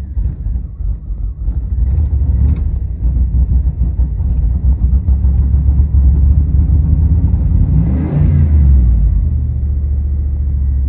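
Warm truck engine being cranked over on the starter without catching, the hot no-start fault. It swells briefly about eight seconds in.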